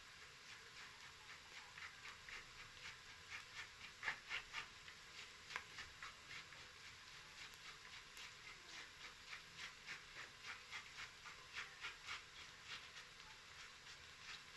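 Onions frying in a pan, giving faint, fairly regular crackles and pops, about two or three a second, a little louder a few seconds in.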